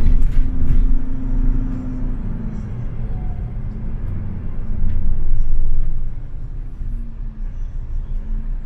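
City bus running, heard from inside the passenger cabin as a low engine and road rumble. A steady hum fades after about two seconds and returns near the end, and the rumble swells louder about five to six seconds in.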